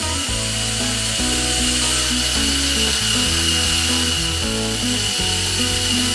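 Small electric motor of a toy building-block crane running steadily with a high whine as it extends the telescopic boom. Background music plays underneath.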